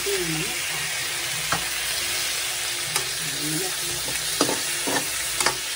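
Boiled chicken pieces, garlic and onion sizzling steadily in hot oil in a metal wok as they are sautéed, stirred with a metal spatula that clacks and scrapes against the pan several times.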